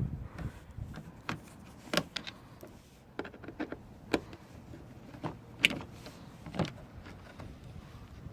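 Scattered light clicks and taps, about eight at irregular intervals, from a T20 Torx driver and screws as the fog light housing's three screws are worked out.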